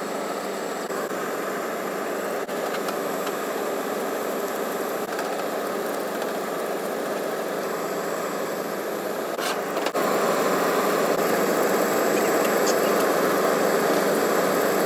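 Cleaning fluid streaming from a parts washer's nozzle and splashing into the tub and over aluminium engine cases as they are rinsed. Steady, getting a little louder about ten seconds in.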